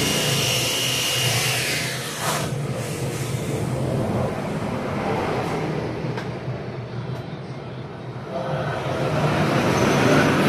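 Steady rumble and hiss of background vehicle traffic, dipping about two seconds in and again a little later, then swelling near the end.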